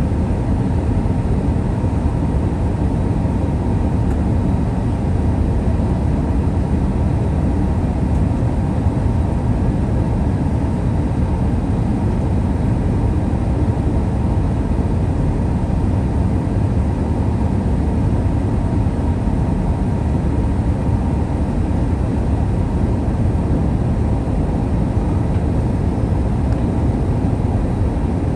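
Steady cabin noise inside an Airbus A321-200 in flight: an even rush of airflow and engine drone, heaviest in the low end, with no sudden changes.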